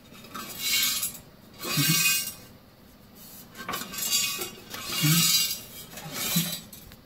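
Loose metal pieces clinking and rattling inside the DK2 Power OPC506 wood chipper's drum as the drum is turned over by hand with the spark plug out. The rattle comes in five bursts, one every second or so. The owner suspects they are bits left inside the drum from poor welding.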